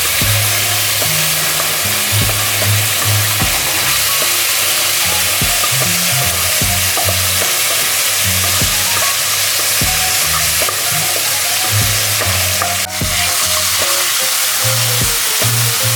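Stir-fry sizzling steadily in a frying pan while being stirred, with scattered clicks of the utensil against the pan. Background music plays underneath.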